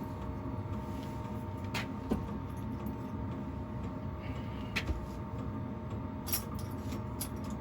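Steady workshop motor hum, with a few light clicks and taps of small metal items being handled.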